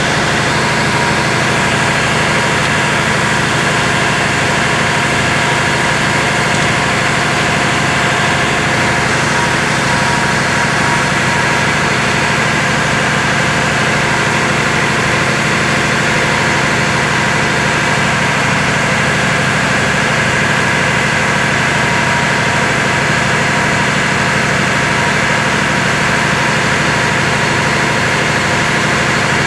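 Engine-room machinery noise: a large engine running steadily at constant speed, a loud unchanging drone with several steady tones.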